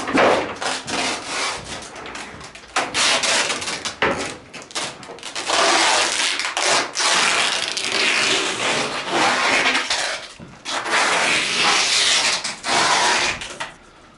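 Disassembled laminated chipboard furniture panels being handled and carried, scraping and rubbing against each other with scattered knocks. The rasping grows dense about three seconds in and dies down shortly before the end.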